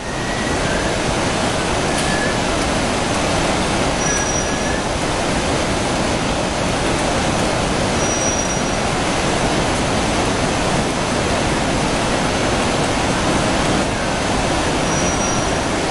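Steady roar of a large waterfall mixed with the running noise of a passenger train crossing the bridge in front of it, with a few faint, brief high-pitched squeals.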